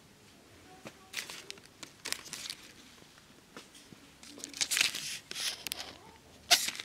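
Clear plastic packaging crinkling as a hand takes a carded craft pendant off a peg hook and handles it: several short rustles, with a sharp crackle, the loudest, near the end.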